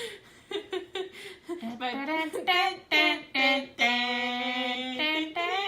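A girl singing a tune, holding one long note about four seconds in.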